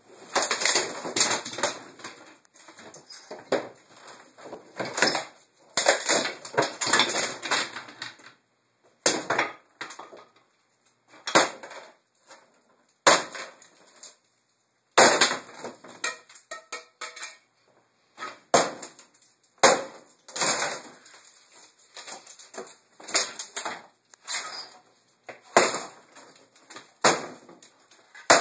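Wooden kitchen cabinets and shelving being torn down: repeated crashes, cracking and splintering of boards, irregular throughout. A dense flurry of blows fills the first several seconds, then separate crashes follow a second or so apart.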